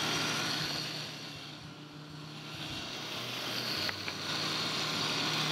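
Countertop blender motor running steadily, blending a thick cocoa cream; its level dips about two seconds in and builds back up.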